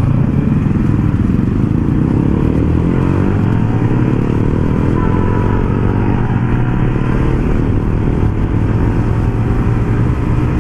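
Yamaha LC135 motorcycle's single-cylinder engine running steadily while riding, its pitch shifting a few seconds in, with wind rushing over the helmet mic.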